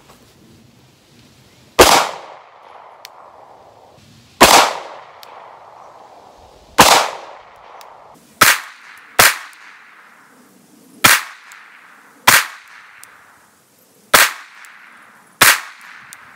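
Nine single shots from a SAR 9 9mm semi-automatic pistol, fired at an unhurried, uneven pace between about two seconds in and near the end, each crack trailing off in a short echo. These are test shots checking whether the mounted laser has lost zero after being struck.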